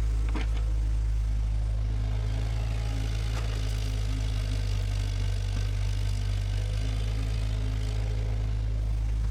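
Bulldozer's diesel engine running with a steady, low, even drone, with a couple of short knocks, one just after it starts and one about three seconds in.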